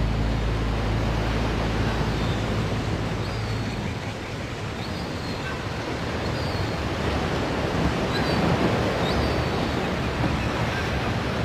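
Ocean surf washing steadily on a shore, with a few short, high bird calls over it. The last low notes of the music fade out in the first couple of seconds.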